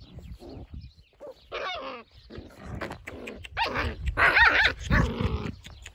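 Puppies yapping and growling at play: a run of short, high yelps and barks, loudest in the second half.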